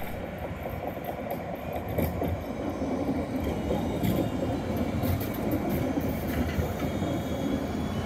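Low-floor electric tram running past on grass-covered track: a steady rumble of wheels on rails that grows louder as the tram draws level.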